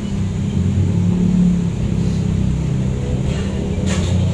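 A loud, steady low rumble, and near the end a brief rustle as cloth brushes against the microphone.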